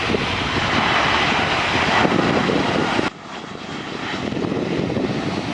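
Engine noise of a Boeing 737-400 jet airliner passing, a loud, dense rush. It breaks off suddenly about three seconds in, then builds back up.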